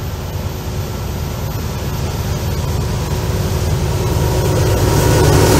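Norfolk Southern diesel freight locomotives approaching, a low engine rumble getting steadily louder as they near.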